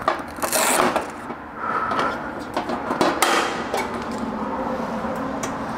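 A few light knocks and clicks of things being handled, over a steady background hiss.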